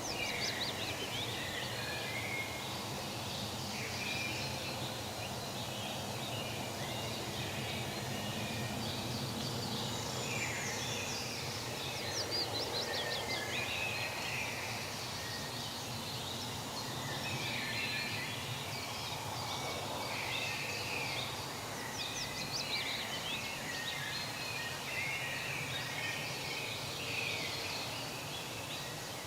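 Forest ambience: many small birds chirping and trilling over a steady background hiss.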